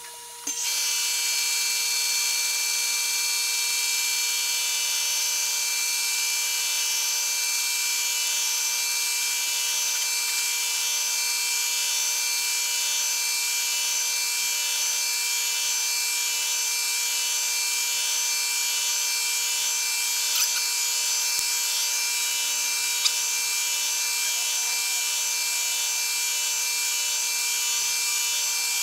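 Milling machine cutting into a wooden block: the steady whine of the running machine, joined about half a second in by the cutter's steady high hiss in the wood, with a couple of small clicks late on.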